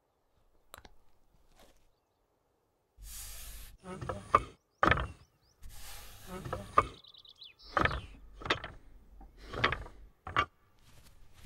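Rusty iron squealing and creaking in a string of sharp strokes, with bursts of scraping between them, as an old iron lever and grille are worked by hand. It starts about three seconds in, after near quiet with a couple of faint clicks.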